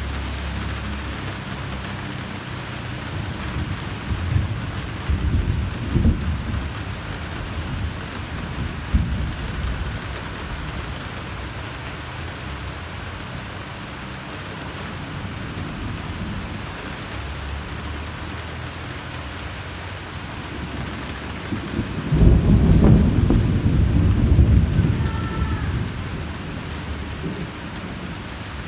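Steady rain falling during a thunderstorm, with rumbles of thunder. There are several short rumbles from about four to nine seconds in, and a louder, longer roll of thunder starting about 22 seconds in that lasts around three seconds.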